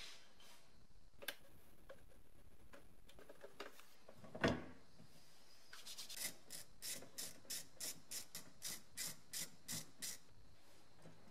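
Hand tools at work on a BMW E30's in-tank fuel pump and sending unit: a sharp click, a single loud knock midway, then a run of about a dozen short strokes, around three a second, as a screwdriver turns out the sending unit's screws.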